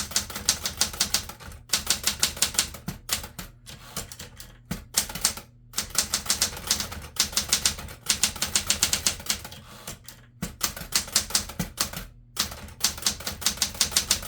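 Smith Corona Galaxie 12 manual portable typewriter being typed on at a moderate pace: fast runs of keystrokes striking the platen, broken by short pauses.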